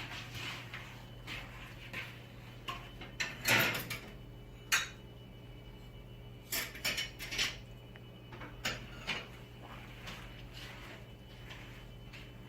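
Irregular metallic clanks and knocks, like hard metal parts being handled, with the loudest near the start and a cluster in the middle, over a steady low hum.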